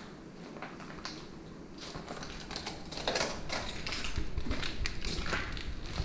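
Footsteps crunching over flakes of peeled paint on the floor: an irregular patter of small crackles that gets denser and louder about three seconds in.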